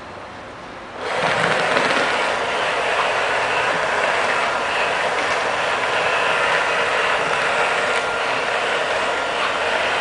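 Robot vacuum cleaner, a CleanMate QQ-2L, switching on about a second in: its suction motor and brushes start abruptly and then run steadily.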